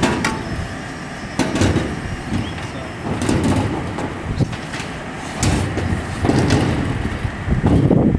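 Aluminium mounting rails knocking and scraping on corrugated steel roof sheeting as they are set down and moved, several separate knocks over a steady low rumble.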